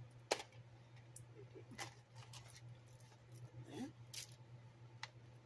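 Small metal jewelry clicking and clinking as a chain bracelet's toggle clasp is worked and pieces are handled: one sharp click about a third of a second in is the loudest, followed by a scattering of lighter clinks. A steady low hum runs underneath.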